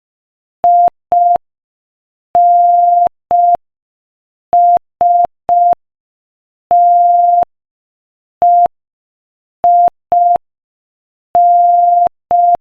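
Morse code sent as a single steady beep tone at 5 words per minute: short dits and long dahs, with about a second of silence between letters, spelling I-N-S-T-E-I-N, the end of the name Einstein. A faint click marks the start and stop of each beep.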